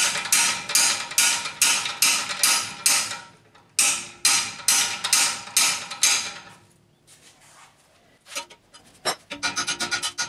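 Hammer blows on a steel bar clamped in a bench vise, about two to three ringing strikes a second in two runs, bending the steel for a bracket. The blows stop past the middle, then two single knocks and a quick run of lighter ticks come near the end.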